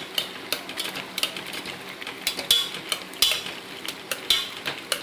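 A metal spoon or ladle stirring food in a cooking pot, with irregular clinks and scrapes against the pot, several a second.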